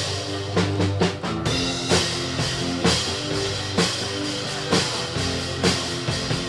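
Instrumental rock music with a drum kit, a strong drum hit landing about once a second.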